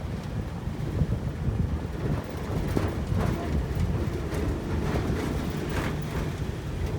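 Low, steady rumble of a vehicle driving along a rough road, with a few light knocks.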